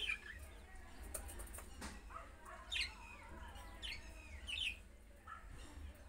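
Budgerigars chirping, with several short, falling chirps in the second half, and a run of light clicks about a second or two in from beaks picking at wheat grains. A steady low hum runs underneath.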